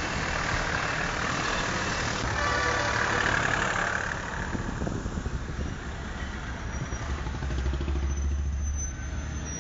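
Road traffic on a wet road: vehicle engines running and tyre hiss, loudest in the first few seconds, then a low engine drone near the end.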